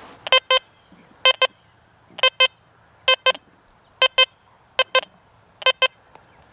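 XP Deus 2 metal detector sounding a short double beep on each sweep of the coil over old iron nails, seven pairs of high beeps about one pair a second.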